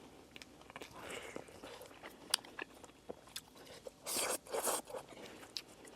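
Close-miked chewing and biting of a chicken nugget dipped in sweet and sour sauce: scattered small crunches and mouth clicks, with two louder crunches about four seconds in.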